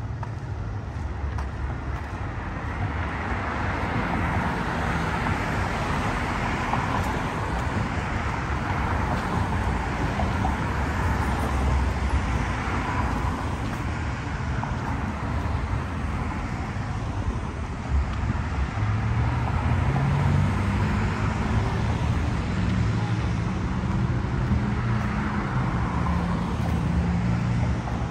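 City street traffic: cars passing with tyre and engine noise swelling and fading. From about two-thirds of the way in, a vehicle's engine hums low and steady close by.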